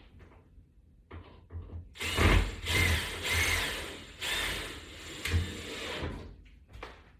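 Screw being driven into a toggle-bolt anchor with a power screwdriver, the motor running in several short runs over about four seconds.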